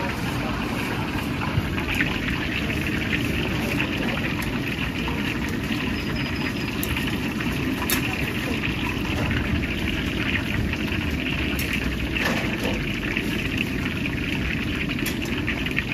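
Steady cooking noise at a street-food stall: a low rumble under a frying hiss, with a few light clicks of utensils.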